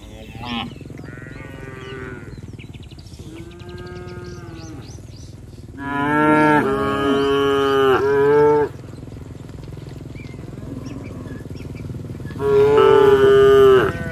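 Cattle mooing as the herd walks: a couple of fainter moos early on, then a loud, long moo about six seconds in and another loud moo near the end.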